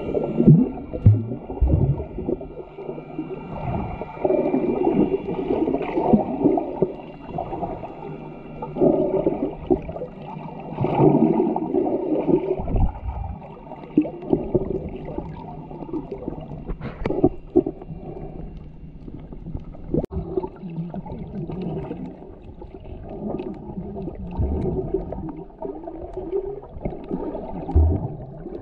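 Muffled underwater sound of moving water and bubbles, picked up by a camera held below the surface, with dull sound that swells and fades every few seconds. A couple of sharp clicks come through in the second half.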